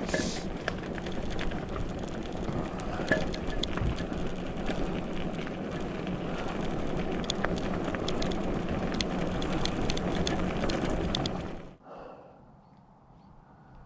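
Fat-tyre e-bike and its towed trailer rolling over a rough forest track: a steady rumbling noise with many scattered clicks and knocks, which cuts off suddenly near the end.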